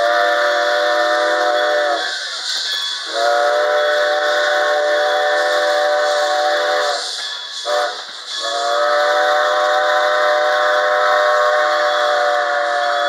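Steam locomotive's chime whistle blowing four blasts, long, long, short, long, the grade-crossing signal, over the rolling noise of passenger coaches passing close by. The final blast is the longest and cuts off near the end.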